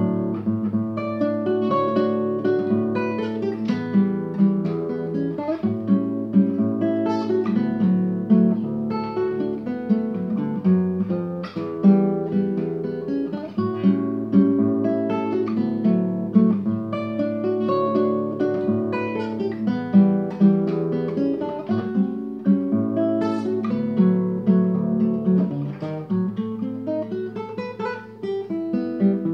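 Solo nylon-string classical guitar played fingerstyle in drop-D tuning (DADGBE): a continuous stream of plucked melody notes over a sustained bass line.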